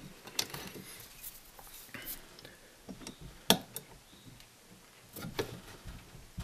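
Tongue-and-groove pliers crimping a retaining clip closed on a drum brake shoe's pivot pin: a few faint metal clicks and ticks. The sharpest click comes about three and a half seconds in, and a short cluster comes near the end.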